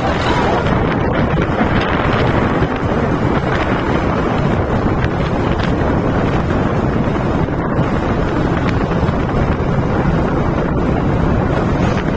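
Steady loud wind rush buffeting the microphone while riding, a dense low rumble throughout.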